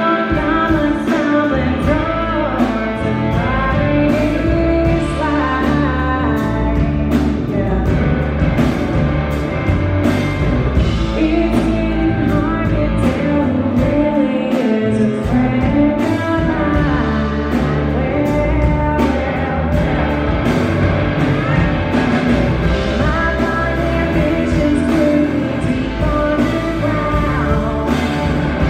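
Live blues-rock band playing loudly, with singing over bass, guitar and a steady drum beat.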